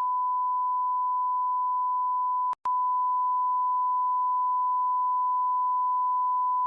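A steady electronic bleep tone on one unchanging high pitch, with a brief break about two and a half seconds in. It is the kind of tone that is laid over a soundtrack to blank it out.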